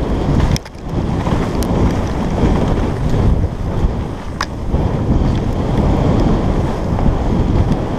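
Wind rushing over a helmet-mounted camera's microphone as a mountain bike descends fast on a dirt and leaf-covered trail, with the tyres rolling and the bike rattling underneath, and a few sharp clicks.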